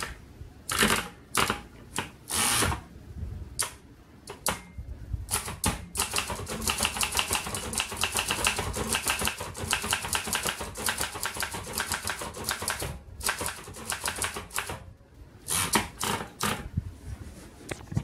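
1948 Remington Rand De Luxe Model 5 portable typewriter being typed on. A few separate clacks of the mechanism come first, then a fast run of keystrokes for about seven seconds, then a few more single clacks near the end.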